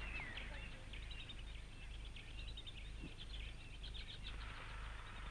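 Small birds chirping in the bush: many short, quick calls, with one falling whistled note near the start, over a steady low hum.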